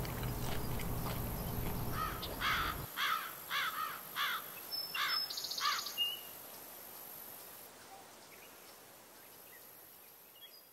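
Outdoor ambience: a bird calls a quick series of about eight slurred, arching chirps, over a steady faint high insect whine. A low background rumble drops out about three seconds in, and the sound fades away near the end.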